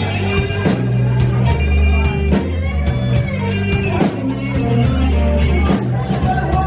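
Live blues band playing a slow blues: an electric guitar plays a lead line with bent notes over bass guitar and drums.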